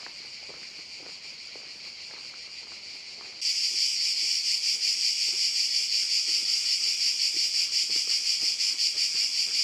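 A chorus of insects, a steady high-pitched pulsing buzz that becomes much louder about three and a half seconds in.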